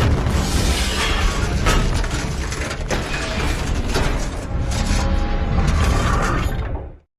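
Film destruction sound effects: a dense run of crashes and impacts over a heavy low rumble, cutting off abruptly about seven seconds in.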